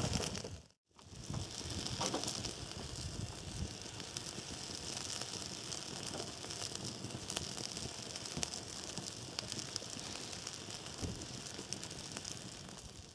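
Swedish candle log fire burning, with a steady hiss and many small irregular crackles and pops.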